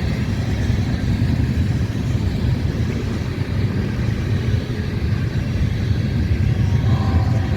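Freight train passing with a steady low rumble from its locomotives and cars. A train horn sounds again briefly near the end.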